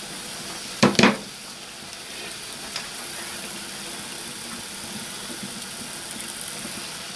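Steady hiss of a pan of pasta boiling on the hob, while shredded cooked chicken is tipped from a bowl into a glass baking dish. Two sharp knocks about a second in as the bowl strikes the dish.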